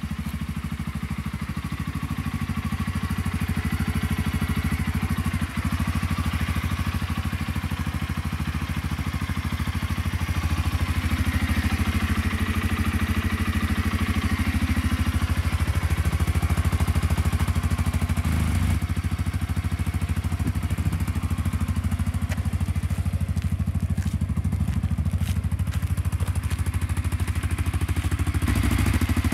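CF Moto CForce 520L ATV's single-cylinder four-stroke engine idling steadily.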